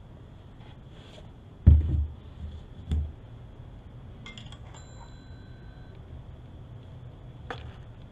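Tool and container handling: two dull thumps as a plastic oil jug is set down, then a light metallic clink that rings briefly as a socket wrench and extension are picked up, and a sharp click near the end.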